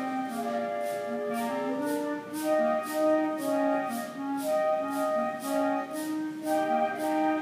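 School wind band playing live, woodwinds and brass carrying the melody and harmony, with a high shaken percussion instrument keeping a steady beat of about two strokes a second.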